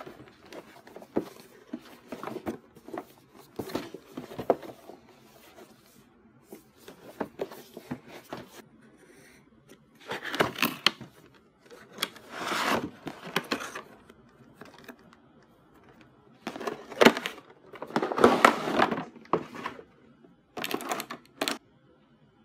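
Toy packaging opened and handled by hand: irregular crinkling, rustling and tearing of box and wrapping, with scattered clicks and taps and several louder rustles in the second half.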